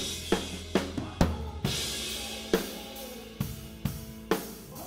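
Live band playing a slow ballad, led by a 1972 Ludwig Butcher Block Maple drum kit: kick and snare hits about every half second, with a cymbal crash about a second in that rings for about a second. Bass and other instruments hold steady notes underneath.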